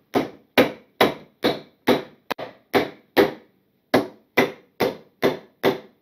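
Hammer striking the nails of a plastic electrical junction box, driving them into a wooden stud: a steady run of about a dozen sharp blows, roughly two a second, with a brief pause a little past halfway.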